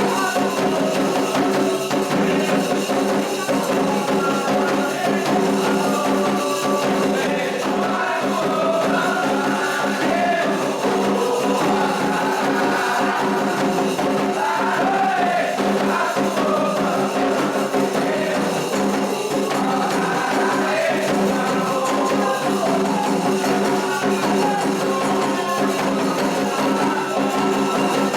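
Candomblé ritual song: voices singing together over continuous rhythmic percussion, without a break.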